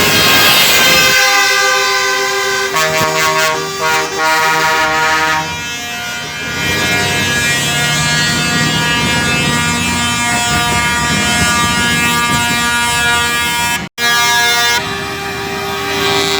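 Truck air horns blowing in long held blasts, several horns overlapping and the chord changing every few seconds, with a very brief break near the end.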